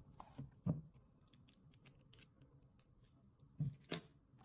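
Faint handling noise of small plastic accessories: scattered light clicks and rustles, with sharper clicks about two-thirds of a second in and again near the end.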